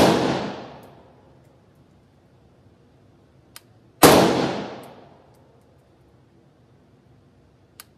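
Galil ACE SAR pistol in 5.45×39 fired in slow single shots about four seconds apart: one right at the start, one about four seconds in and one at the very end. Each sharp report rings out in the indoor range's echo for about a second.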